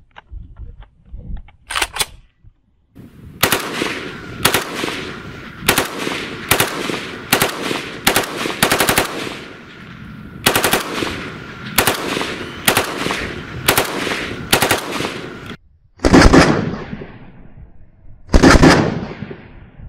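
VULKAN-M bullpup Kalashnikov rifle in 5.45 mm firing: a quick double shot, then a long string of rapid shots and short bursts, then two longer, louder automatic bursts near the end.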